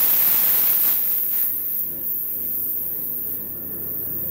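A loud hiss of compressed air at a tire changer, fading out about a second and a half in and leaving a quieter low shop hum.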